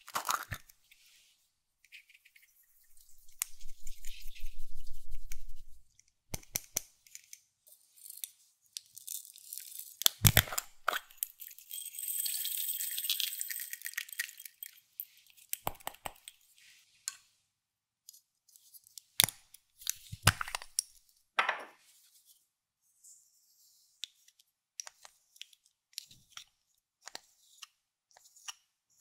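Close-miked handling of makeup and slime: scattered sharp clicks and taps, a dense low rubbing stretch a few seconds in, and several seconds of crisp crinkling and crushing in the middle.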